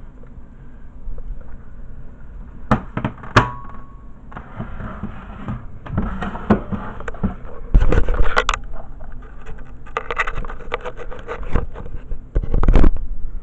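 Handling noises from unboxing a mini fridge: scattered knocks and clicks with rustling, scraping stretches, and heavier thumps about eight seconds in and near the end.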